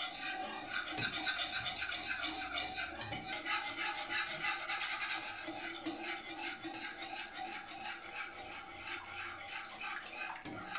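Wire whisk beating milk into a butter-and-flour roux in a nonstick pan: quick, continuous scraping strokes.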